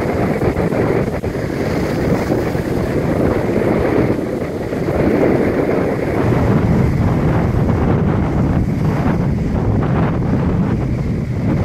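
Strong wind buffeting the microphone over rough storm surf, with waves breaking against a concrete sea wall and washing across the promenade. A steady, dense rush of noise that grows heavier in the low end about halfway through.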